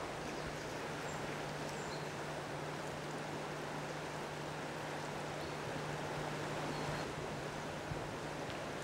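Steady rush of a shallow river flowing, an even wash of water noise, with a low steady hum underneath.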